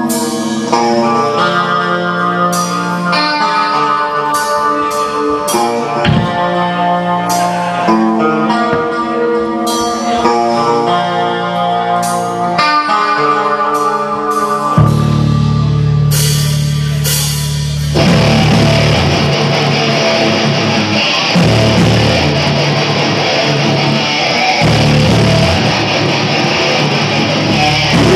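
Rock band playing live: a guitar picks out a melody of single notes, a low bass note comes in about halfway through, and about two-thirds of the way in the full band with drums enters and the sound grows dense.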